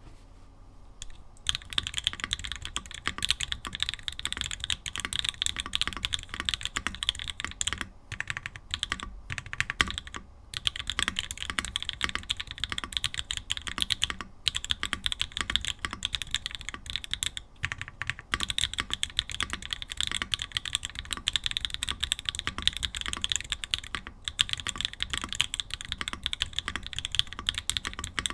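Typing on a Mode Tempo 60% mechanical keyboard fitted with Mode Obscura switches and Mode keycaps, built with no foam in the case. It starts about a second and a half in as a dense, fast run of key clicks, with a few short pauses between bursts.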